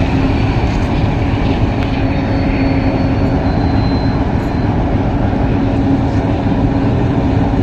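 Diesel locomotive's engine running with a steady drone as it hauls a short train slowly across a steel railway bridge.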